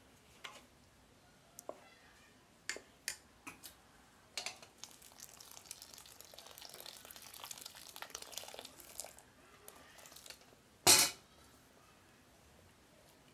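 A wooden spoon clicks against an aluminium pot as maize flour slurry is stirred. Then hot water is poured from a kettle into the pot for about five seconds, followed by one loud knock.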